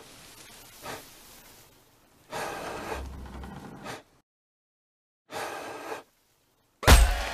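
A person's sharp gasps and breaths, two short bursts separated by dead silence, then a sudden loud hit near the end.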